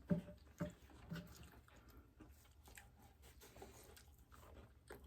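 Faint eating sounds: chewing, with scattered soft clicks and ticks.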